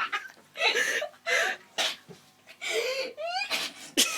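A person sneezing several times, set off by sneezing powder, with gasping breaths and whimpering, pitched vocal sounds between the sneezes.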